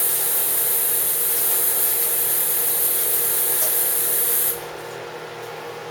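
Kitchen faucet running, water splashing over a bell pepper being rinsed: a steady hiss that cuts off sharply about four and a half seconds in when the tap is shut.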